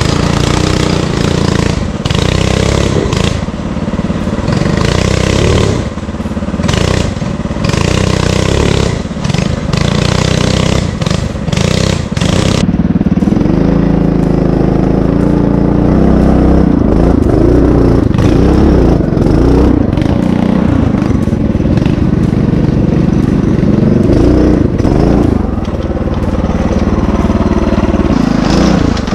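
Homemade fat-tire off-road motorcycle's engine running under load on a rocky trail climb, its note rising and falling with the throttle. For the first twelve seconds or so loud rushing noise and clattering knocks lie over it; after that the engine is heard more clearly.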